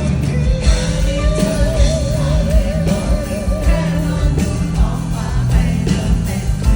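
Live rock band playing a song with a steady drum beat and singing; a long note wavers with vibrato for about three seconds.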